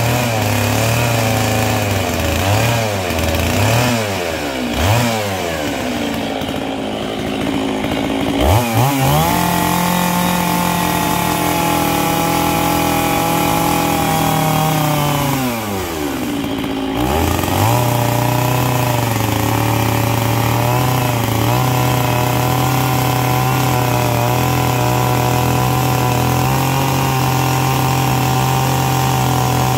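Stihl 660 chainsaw's big two-stroke engine revving up and down for several seconds, then opened up sharply to run at high revs with the chain cutting into a paulownia log. The revs drop briefly about halfway through, then climb again and hold steady while it keeps cutting.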